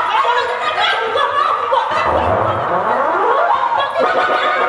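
Laughter and excited voices, with loud rising and falling cries.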